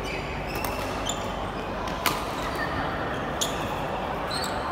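Badminton rally: several sharp racket strikes on the shuttlecock, about one to one and a half seconds apart, the loudest about two seconds in. Short high squeaks of shoes on the court floor come between the hits, over a steady hall background.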